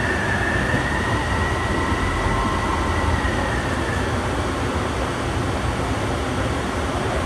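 AirTrain JFK people mover running along its elevated guideway, heard from inside the car: a steady rumble with a thin high tone that fades away about halfway through.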